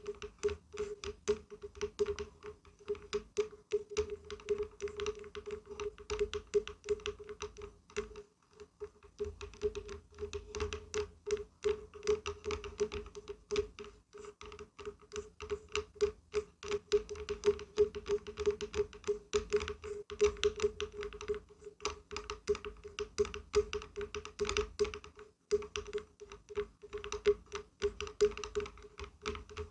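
Rapid, irregular tapping and knocking on wood, a dense patter of knocks that each ring at the same low note, with a few brief pauses.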